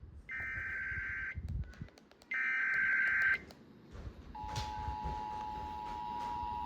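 Emergency Alert System broadcast alarm: two bursts of the SAME digital data header, each a harsh screech about a second long, then about four seconds in the two-tone EAS attention signal starts and holds steady.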